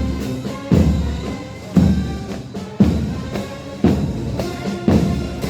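Military marching band playing, with a bass drum striking on the beat about once a second under held instrument notes.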